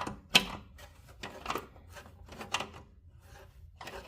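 Slip-joint pliers' serrated jaws gripping and turning a large screw to tighten it: a series of short, irregular scrapes and clicks, the loudest about half a second in.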